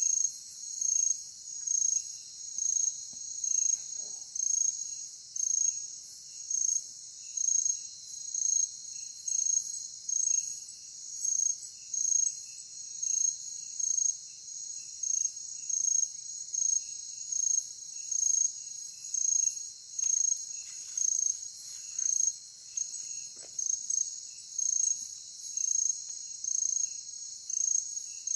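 Night insects, crickets among them, chirping: a steady high trill with a louder pulse about once a second, and fainter short chirps a little lower in pitch.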